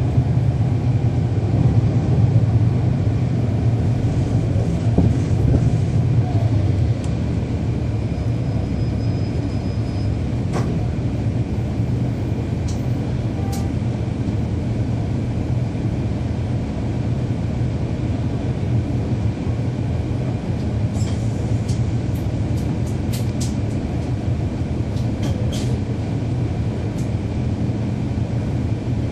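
Cummins ISL9 inline-six diesel of a NABI 40-foot transit bus, heard from on board, running steadily with a low drone. The drone eases a little about seven seconds in, and a few light clicks and rattles come through near the end.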